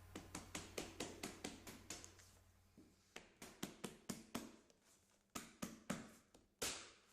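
Gutter-edge drip plate being tapped down along a flat-roof edge so it snaps onto the hook of the back plate: quick taps in three runs of about four or five a second, then one sharper knock near the end.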